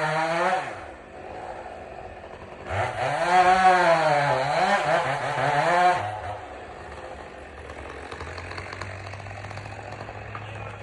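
Chainsaw at full throttle that drops back just under a second in, revs up again for about three seconds with its pitch sagging and recovering under load as it cuts, then falls back to a low idle.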